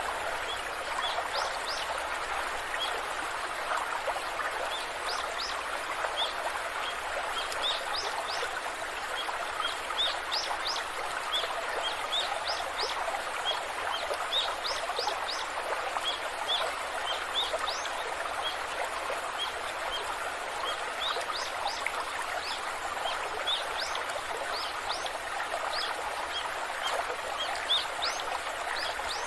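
Waterfall rushing steadily, with small birds chirping over it in short, high, repeated calls.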